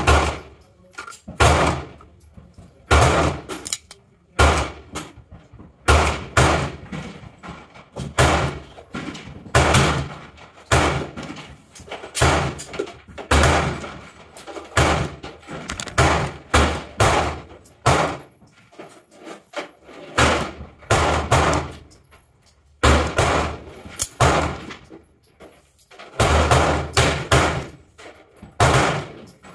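Gunshots at a shooting range: loud, sharp reports one after another, roughly one a second and sometimes in quick pairs, each with an echoing decay.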